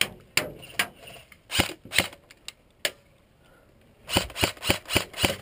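Airsoft guns firing: a few single sharp shots about half a second apart, then a pause, then rapid fire at about six shots a second from about four seconds in.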